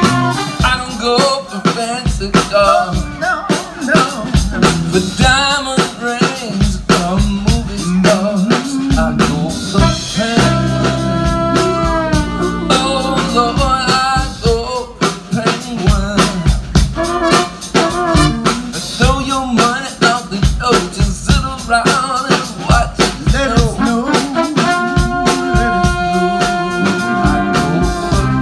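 Live large band with horns playing an up-tempo song: a drum kit keeps a steady beat under saxophone and trombone, with a male lead vocal. The band holds long chords about ten seconds in and again near the end.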